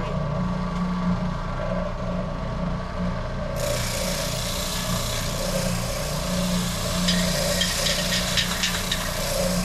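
Sanding on a wooden guitar body over the steady hum of a shop motor, with a quick run of scraping strokes near the end.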